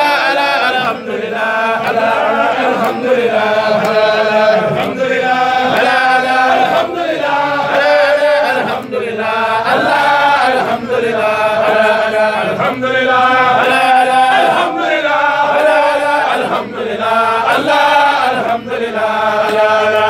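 A group of men chanting Sufi zikr together, one short phrase repeated over and over, about one phrase every two seconds.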